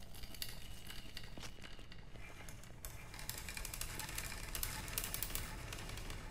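Faint, scattered crackling and clicking over a low, steady background rumble, growing busier about halfway through.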